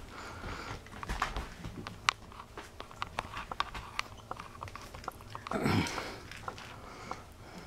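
Small pets moving about in a pet pen: light scattered clicks and scuffles, with a brief louder rustle about five and a half seconds in.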